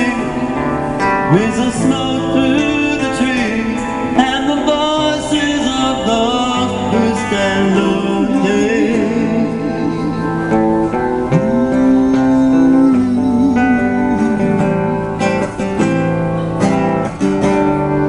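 Live band music: a male singer singing a soul-style song, holding notes with a wide vibrato, over electric guitar chords and a steady low bass line.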